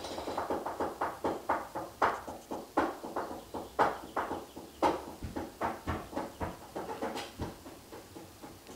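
A pug breathing noisily in quick, rhythmic short breaths, about three or four a second.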